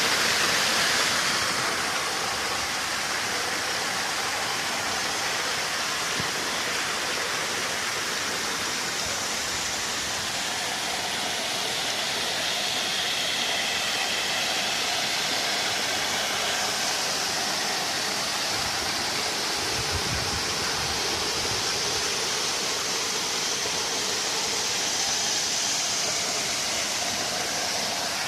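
Waterfall: the steady rush of falling water, an even hiss that does not let up. A brief low rumble comes about twenty seconds in.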